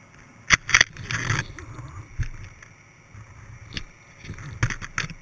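Underwater handling noise from a GoPro in its waterproof housing on a halibut rig: a series of sharp knocks and a short scrape as the rig and line bang against the camera while it sinks toward a rocky seabed.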